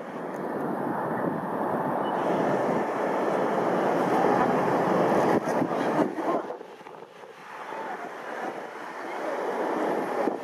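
Airbus A380-841's Rolls-Royce Trent 970 jet engines running at taxi power, a steady rushing noise that builds to its loudest midway, dips briefly and builds again near the end, with wind on the microphone.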